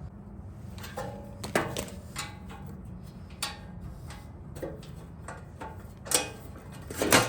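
Irregular metal clicks and knocks, some with a short ring, as table-saw parts and tools are handled and fitted during reassembly, the loudest two near the end, over a steady low hum.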